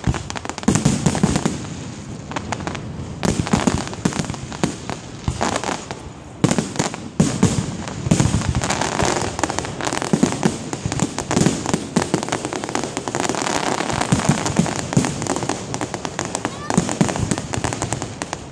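Fireworks display: aerial shells bursting in rapid, overlapping bangs and crackles.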